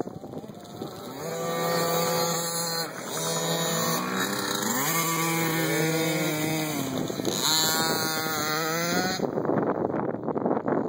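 Small two-stroke youth dirt bike engines (KTM 50s and 65) revving, more than one at once, their pitch climbing and dropping as the bikes ride the track. Wind buffets the microphone at the start and near the end.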